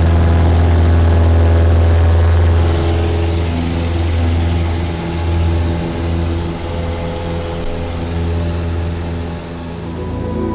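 Small propeller plane's piston engine running steadily with a strong low drone, a little quieter after about three seconds, heard from inside the cabin.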